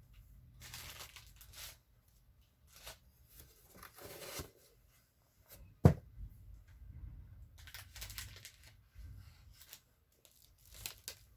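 Packaging being handled, torn and crinkled in short scattered rustles, with one sharp knock about six seconds in.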